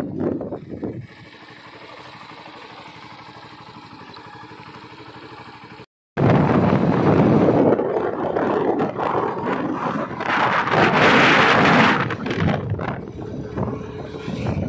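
Motorcycle riding along a road. For the first few seconds its engine runs steadily at low speed. After a brief break, wind rushing over the microphone and road noise take over, loud and even, strongest about two-thirds of the way in.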